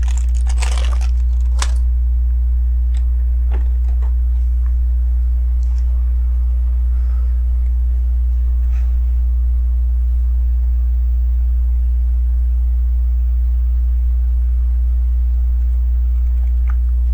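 A steady low electrical hum, with faint clicks and rattles of small plastic LEGO bricks being handled, most of them in the first two seconds and a few more scattered later.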